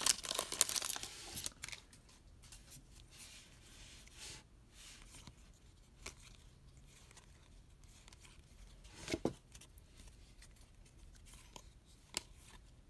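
Foil wrapper of a baseball card pack torn open and crinkling during the first second or so. After that it is quiet, with faint clicks and rustles of cards being flipped through by hand, a brief louder rustle about nine seconds in and a sharp click near the end.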